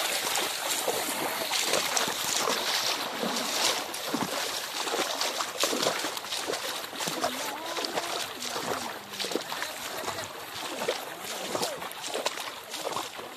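Legs wading through shallow floodwater, an irregular run of sloshing and splashing strokes.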